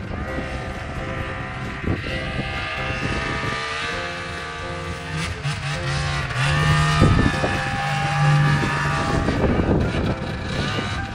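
Snowmobile engine running and revving up and down, loudest about seven to nine seconds in.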